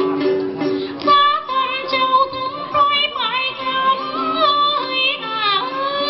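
Tày then folk song: a plucked đàn tính lute in the first second, then a high female voice holding long notes with slides and bends over it.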